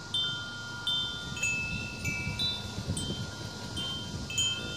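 Metal wind chimes ringing in a breeze: irregular strikes about every half second to second, with several different notes ringing on and overlapping.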